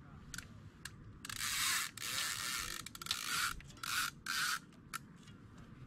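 Centrepin float reel spinning against its ratchet check, buzzing in one long and several shorter bursts as a fish pulls line off the drum.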